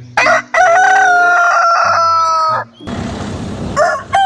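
Rooster crowing: one long cock-a-doodle-doo lasting about two seconds, dropping slightly in pitch, followed by a short hiss.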